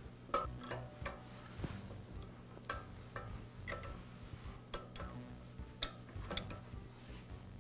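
Ratchet wrench clicking in irregular strokes, with light metal clinks of the socket on the valve, as the thermal relief valve is unscrewed from a pressure washer's brass pump.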